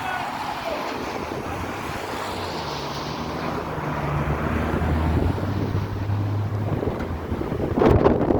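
Strong gusting wind buffeting the microphone, with a low steady hum through the middle and a loud clatter just before the end.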